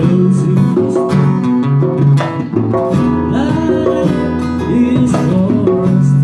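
Live acoustic band music: an acoustic guitar playing with a djembe hand drum beating along.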